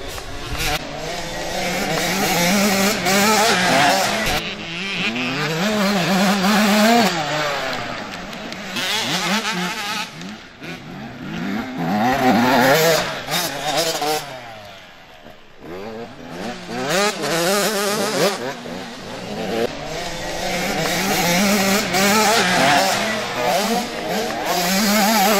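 Two small two-stroke motocross bikes revving hard through the corners, their engine pitch rising and falling with the throttle and shifts. The engines swell as the bikes pass close, fade briefly about midway, then build again near the end.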